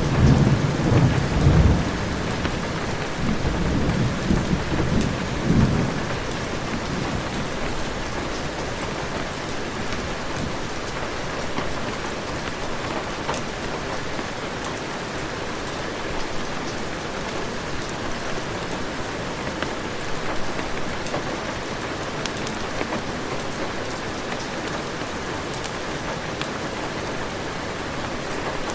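Heavy rain falling steadily, with a roll of thunder rumbling through the first six seconds or so before it fades, leaving the even hiss of the downpour.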